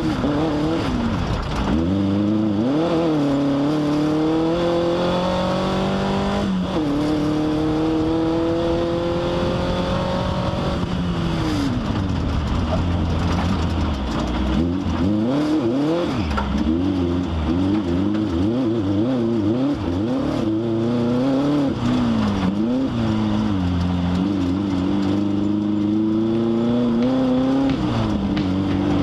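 Off-road race vehicle's engine running hard. Its pitch climbs steadily, drops sharply, climbs again, then rises and falls rapidly over and over as the throttle is worked on and off.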